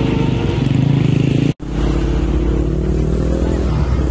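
Underbone race motorcycle engines running steadily, with a brief total break about a second and a half in.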